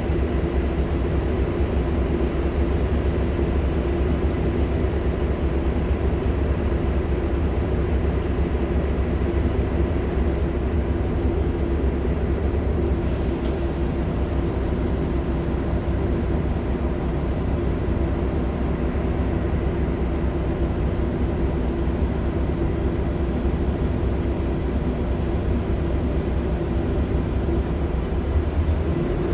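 Nova LFSA hybrid articulated bus running steadily under way: its Cummins ISL9 diesel and Allison H50 EP hybrid drive giving a deep, even drone with a steady hum.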